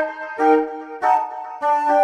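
Outersect Modeler synthesizer preset playing a sequence of short pitched chords, a new one struck about every half second.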